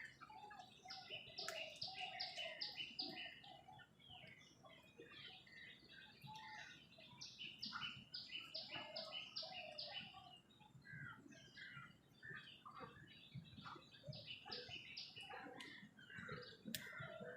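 Several wild birds calling at once, a busy mix of chirps and chattering calls. Three times a bird gives a quick run of repeated high notes, about five a second.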